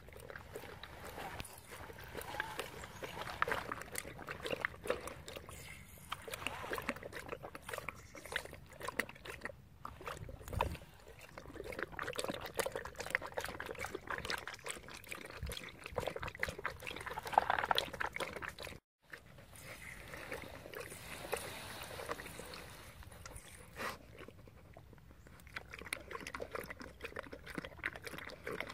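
A dog lapping water from a nose-operated livestock drinking bowl, pressing the bowl's paddle so water trickles in: quick wet laps and splashing. A brief gap in the sound comes about two-thirds of the way through.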